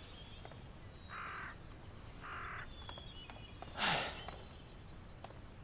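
Faint background birdsong, with a few soft swishes; the loudest comes about four seconds in.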